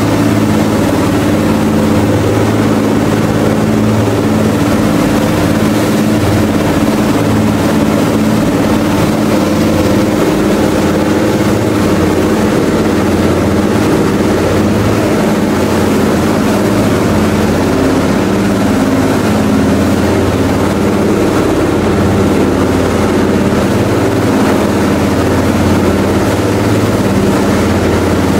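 Large-displacement Komatsu marine diesel of a water-jet boat running steadily at speed, its exhaust a loud, deep drone, over the rush of the wake.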